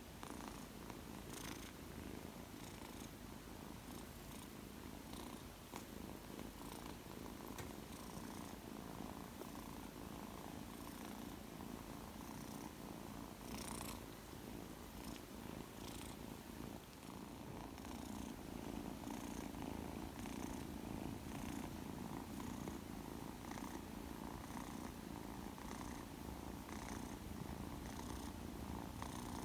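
A two-month-old Persian kitten purring steadily and continuously, close up, a little louder in the second half.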